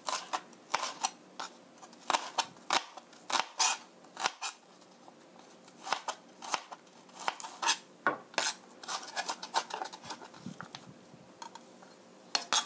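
Chef's knife mincing onion on a plastic cutting board: irregular runs of quick chops, each a sharp knock of the blade against the board.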